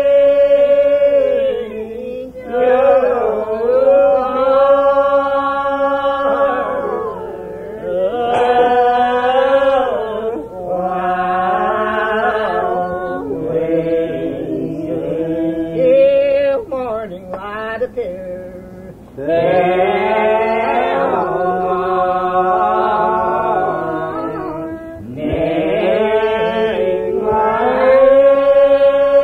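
Old Regular Baptist congregation line-singing a hymn unaccompanied, voices drawing out each syllable in long, slow, ornamented notes that slide between pitches, with short breaths between phrases. The recording is dull in the treble, as from an old cassette tape.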